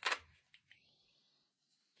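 Round bristle hairbrush handled close to the microphone: one short, loud scratchy rustle at the start, then two faint clicks.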